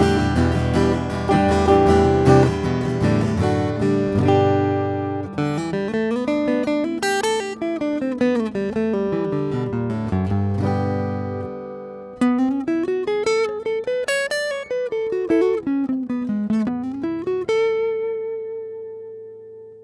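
Steel-string acoustic guitar played through a sound hole pickup test rig. It opens with strummed chords, then turns to picked single-note runs that climb and fall, and ends on one held note that rings out and fades.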